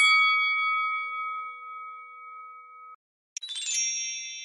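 Bell-ding sound effect: a quick run of bright strikes whose ringing tones hang on and then cut off suddenly about three seconds in. Just after that, a second bright chime with a rapid flurry of strikes rings out and fades.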